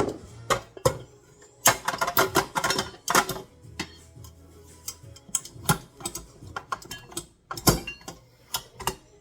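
Irregular clatter of sharp clicks and knocks, a dense run about two to three seconds in and scattered taps after: a utensil tapping and scraping against a mixing bowl as the dry flour mixture is moved into another bowl.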